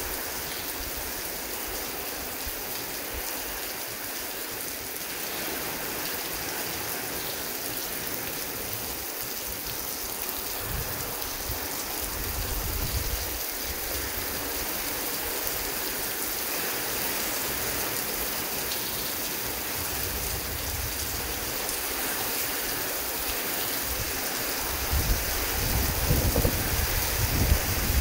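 Heavy rain falling steadily, with low rolls of thunder that build up over the last few seconds.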